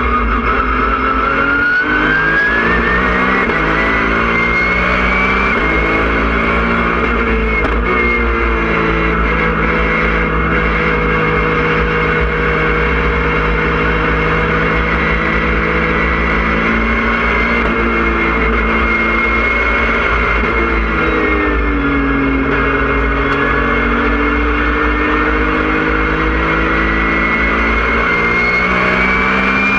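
Porsche 997.1 Cup race car's flat-six engine heard from inside the cockpit under hard driving. The revs climb over the first few seconds, hold steady for a long stretch in the middle, drop about two-thirds of the way through as the car slows, then climb again near the end. A high whine rises and falls with the engine speed.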